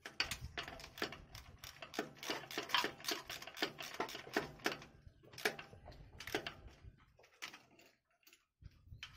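Ratchet wrench clicking as bolts on a truck transmission are tightened: a quick, even run of about four to five clicks a second, thinning to a few scattered clicks in the second half.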